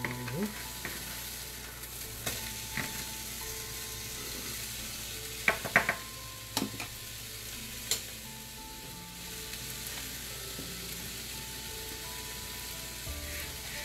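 Lamb chops sizzling steadily as they sear in a frying pan, with a few sharp metallic clinks against the pan about halfway through.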